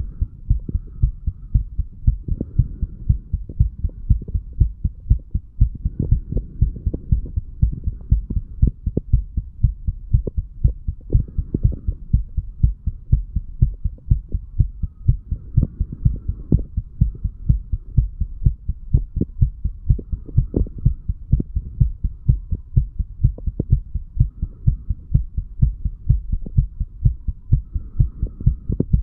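A 35-year-old man's heart beating steadily after heavy drinking, recorded at the mitral (bicuspid) valve area. The regular lub-dub strokes sit over a low steady hum.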